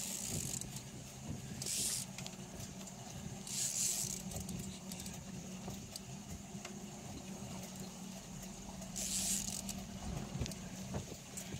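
Boat motor running with a steady low hum while a fishing reel is cranked against a hooked fish, giving light ticks. Four short rushes of hiss come over the top.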